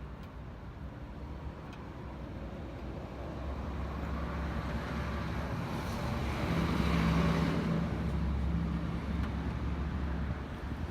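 A motor vehicle going past: a low engine hum with road noise that builds, is loudest about seven seconds in, then eases off.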